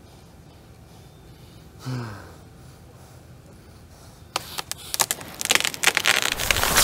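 A man gagged with tape gives a short muffled groan about two seconds in, falling in pitch. From past the middle comes a run of sharp crackling and scraping noises that grows denser and louder.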